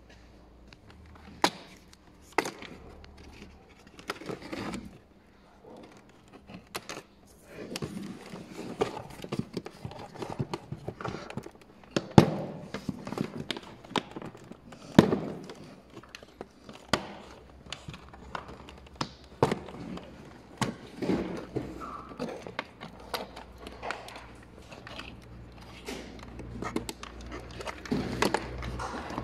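Scattered sharp plastic clicks and knocks with handling rustle from working on the back of a removed car door trim panel: clips, connectors and fittings being handled and pulled.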